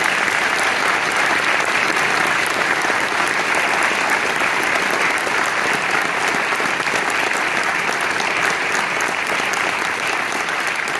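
Audience applauding, a dense, steady clapping that starts just after the speaker's thanks.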